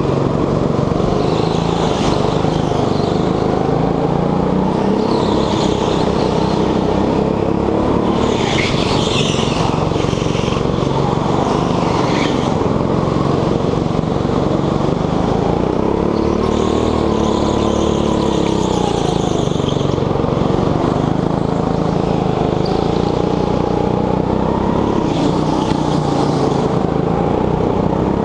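Petrol go-kart engine running hard, its pitch rising and falling as the kart accelerates and slows through the corners, with repeated high-pitched tyre squeal.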